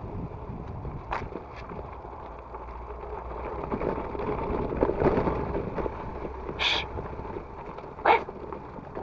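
Mountain bike being ridden offroad: a steady rolling rumble of tyres on rough ground, with a few sharp knocks and rattles, the loudest about eight seconds in, and a brief hiss shortly before it.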